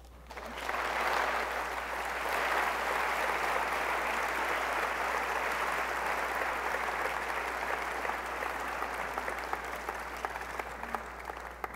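Audience applauding. The clapping starts about half a second in, swells within a second, holds steady and tapers off near the end.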